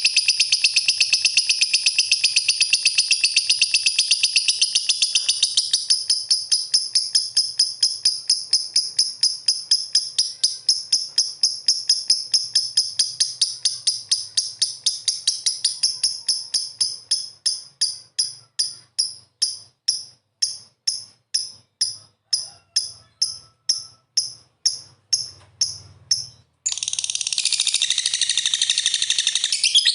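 Lovebird calling in a continuous stream of high-pitched chatter that breaks up into rapid, evenly spaced sharp chirps, about three a second. Near the end the chirps cut off abruptly and dense chatter starts again.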